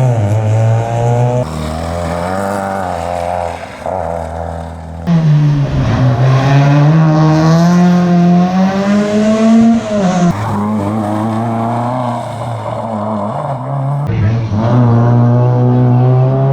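Rally car engines revving hard under acceleration, pitch climbing and dropping with gear changes, in several short shots that cut abruptly from one car to the next.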